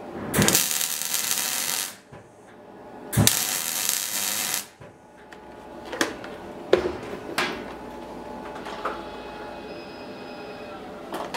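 MIG welder laying two short welds of about a second and a half each, a steady crackling hiss, onto a small metal fitting; a few sharp metallic clicks follow.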